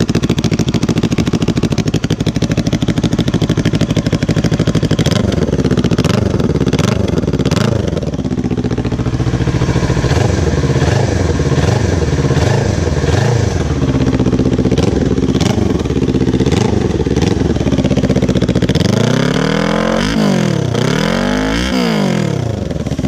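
Kawasaki Ninja 400's parallel-twin engine running and being revved repeatedly in neutral through a homemade exhaust muffler made from a Red Bull can. The revs rise and fall over and over, with several quick sharp blips near the end.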